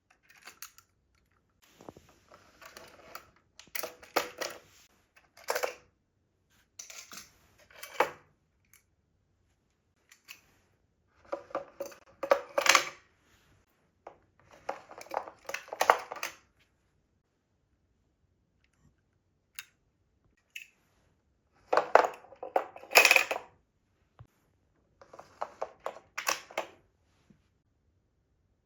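Small hard toys rolling and clattering down a HABA wooden slope run, giving runs of quick wooden clicks and clacks. About eight separate runs, each lasting a second or two with quiet between them; the loudest comes a little past the twenty-second mark.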